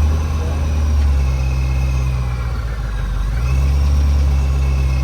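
Chevrolet Corvette C5's V8 idling, with its pitch rising briefly twice as it is revved lightly; the engine is being run after sitting unused for about three years.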